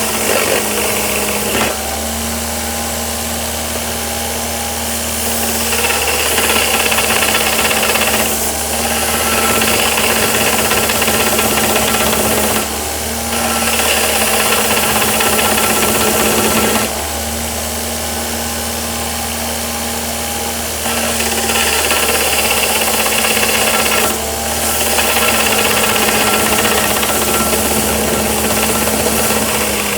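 DeWalt DW578 bench grinder running steadily with a hand-made 2x42 belt grinder attachment while a workpiece is pressed to the abrasive in about five passes of a few seconds each; each pass adds a louder hissing grinding noise over the motor hum, which drops back between passes.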